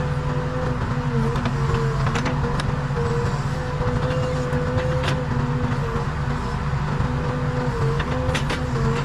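Case 580 Super K backhoe loader's diesel engine running steadily under work, with a steady whine that dips briefly every second or so and scattered light clicks.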